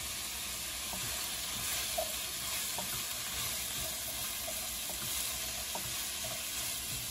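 Chopped cauliflower frying in ghee in a non-stick pan: a steady sizzle, with a spatula stirring and scraping through the pieces now and then.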